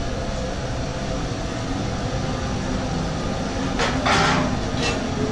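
Steady rumbling background of a working commercial kitchen, from its gas range and ventilation. About four seconds in come a couple of short clatters from cookware on the range.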